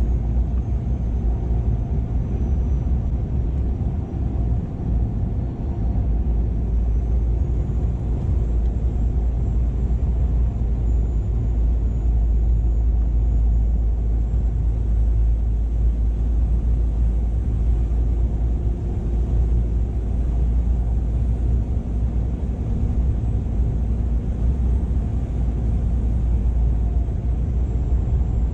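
Laden 2007 Scania R480 truck on the move: steady engine drone and deep road rumble, with no gear changes or revving.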